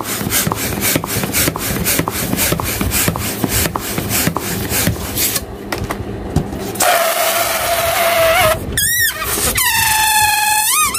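Orange latex balloon inflating with rapid rhythmic puffs of air, about three a second. From about 7 s in, air squeals out through the stretched neck as a steady high whine, then wavering, bending squeals near the end as the neck is pinched and pulled.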